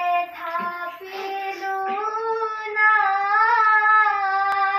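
Children's voices singing a slow melody without accompaniment, mostly on long held notes whose pitch drifts gently up and down.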